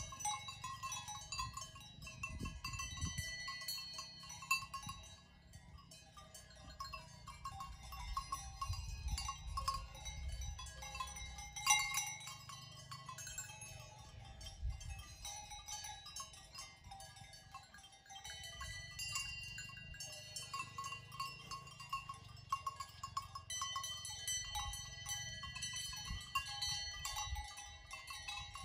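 Bells worn by grazing livestock clanking irregularly, several bells ringing at once with overlapping tones, over a low rumble. One sharper clank stands out about twelve seconds in.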